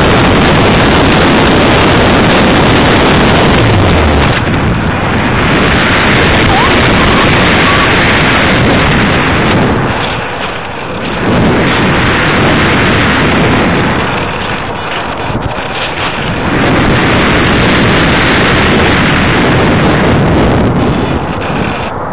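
Loud wind rushing over the onboard camera microphone of a Parkzone Radian RC glider in flight. The rush is steady and eases briefly about ten seconds in and again around fifteen seconds in.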